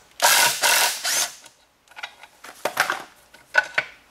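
Cordless impact driver hammering in two short bursts, backing a bolt out of a manual transmission case. A few light metal clicks and clinks follow about two and a half seconds in.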